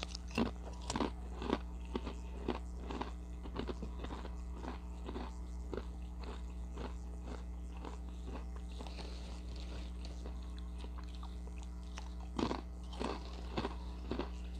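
Ritz Toasted Chips being bitten and chewed, a run of crisp crunches a couple of times a second that thins out midway and picks up again with a fresh bite near the end. A steady low hum runs underneath.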